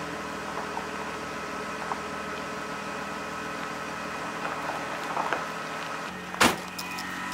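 A steady machine hum holding several even pitches, with one sharp knock about six and a half seconds in.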